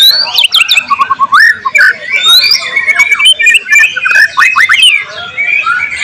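White-rumped shama (murai batu) singing loudly: a fast, varied run of whistled phrases, quick rising and falling glides and sharp rapid notes, growing softer in the last second.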